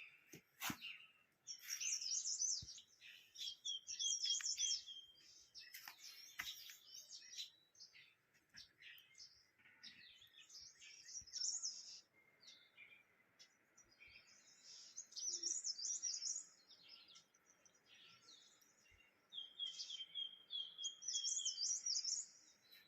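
Several small birds singing and chirping, repeating short high warbled phrases every few seconds, with a run of evenly spaced notes near the end.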